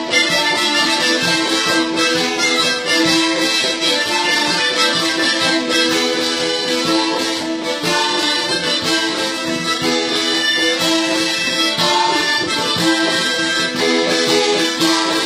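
Accordion playing a traditional strina tune, an instrumental passage without singing, steady throughout.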